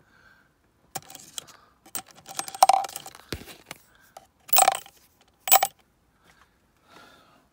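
Steel nails dropped by hand into a small plastic pot of nails, clinking and rattling against the nails already inside in a series of separate drops; the two loudest drops come about four and a half and five and a half seconds in.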